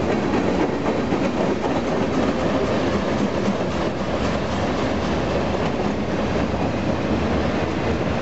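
Freight train cars (boxcars and tank cars) rolling past close by: steady noise of steel wheels running on the rails, with faint scattered clicks.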